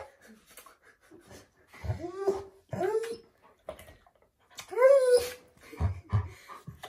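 Alaskan Malamute vocalising in about three short whining, howl-like calls that rise then fall in pitch, near two, three and five seconds in.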